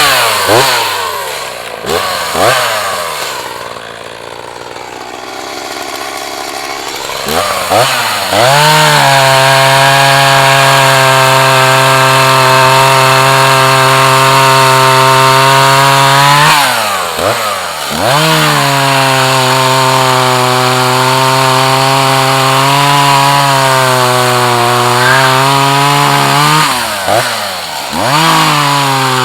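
Echo CS-4010 two-stroke chainsaw bucking wood at full throttle. Early on it drops toward idle for several seconds, then revs back up and holds a steady cutting note, easing off the throttle briefly twice more before revving up again.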